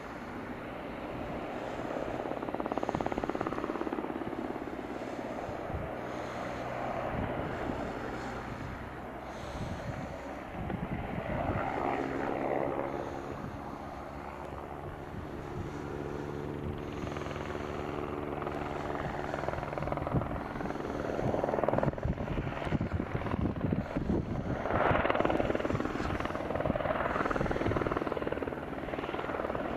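Helicopter in flight, its rotor beating and engine running steadily. It grows louder in the second half, where the rhythmic blade thudding comes through strongly.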